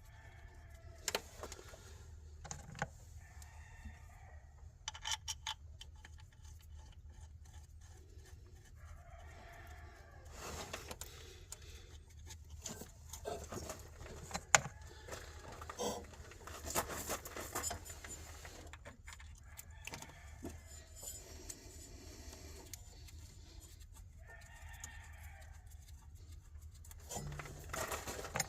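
Metal hand tools clicking and clinking against engine parts, with chickens calling about three times in the background.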